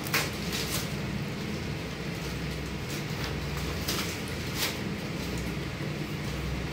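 Short sharp plastic clicks as a cable tie is zipped tight around a tape-wrapped power cable, two near the start and two more about four seconds in, over a steady low machine hum.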